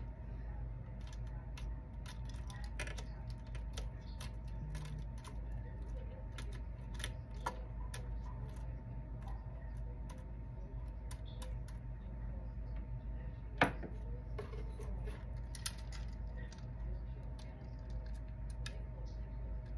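Small scattered clicks and clinks of costume jewelry, pearls and metal brooches, being handled on a jewelry tree, with one sharper click about two-thirds of the way through, over a steady low hum.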